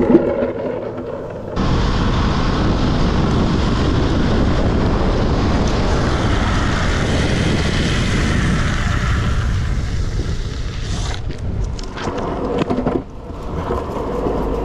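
Wind buffeting the microphone: a steady roar of noise that cuts in suddenly about a second and a half in and turns uneven and gusty in the last few seconds.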